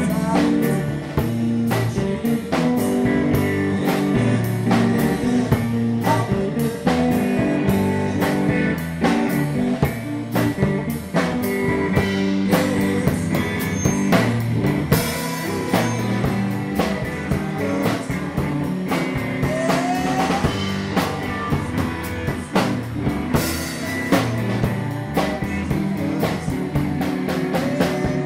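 Live rock band playing an instrumental stretch with no singing: a drum kit with cymbals keeps a steady beat under a five-string electric bass line and guitar.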